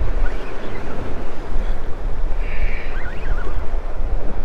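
Wind buffeting the microphone in a low, uneven rumble, over the steady wash of surf.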